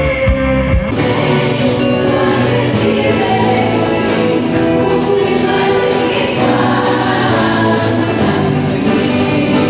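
A choir singing with musical accompaniment; the music changes abruptly about a second in, as at an edit between performances.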